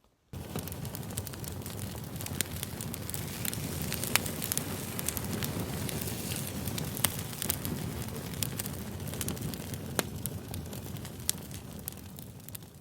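Campfire burning: a steady low rustle of flames with frequent sharp crackles and pops of burning wood, a few pops standing out louder. It fades in just after the start and fades out near the end.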